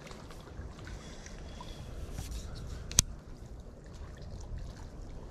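Faint water trickling at a lake's edge over a low rumble, with one sharp click about three seconds in.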